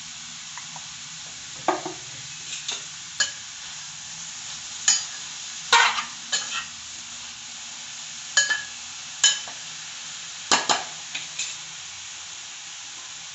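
Shredded cabbage sizzling steadily in oil in a stainless steel pan while a metal spoon stirs it, scraping and clinking against the pan over and over.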